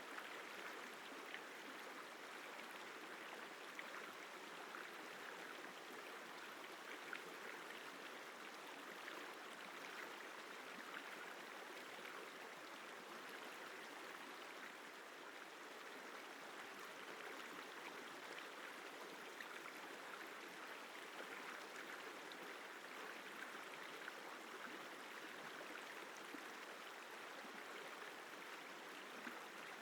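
River water flowing: a quiet, steady, even rush with small splashing flicks.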